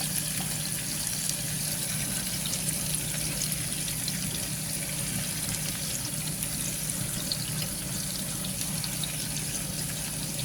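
Purple onion, garlic and onion sizzling in hot oil in a frying pan: a steady crackling hiss as the vegetables sauté.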